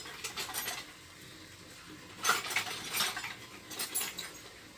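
Loose metal hand tools clinking and rattling as they are rummaged through, in a few short clusters of clinks with quieter gaps between.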